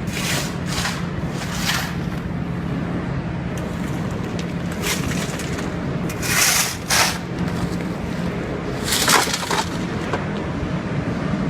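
Ultrafine powder mill running, a steady mechanical drone with a constant low hum, broken several times by short loud hisses, the strongest about nine seconds in.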